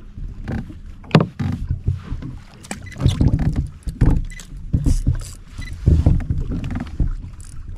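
Irregular clunks, knocks and rustles of gear being handled on a fishing kayak's hull, coming roughly once a second with a few sharper clicks.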